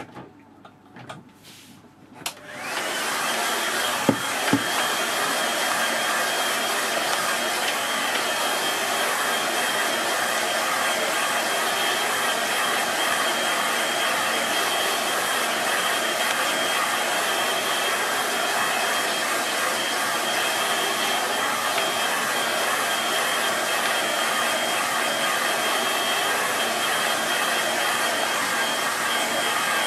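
Vidal Sassoon hair dryer switched on about two seconds in and blowing steadily, a loud even rush of air with a faint high whine, drying a wet watercolour wash. Two brief clicks come just after it starts.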